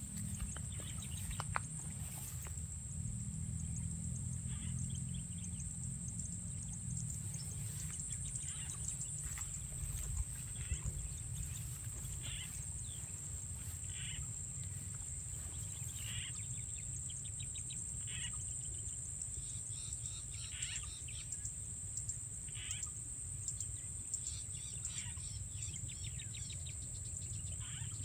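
Rice-field ambience: insects drone steadily in a high, even note, with short rattling calls every second or two and a low rumble of wind.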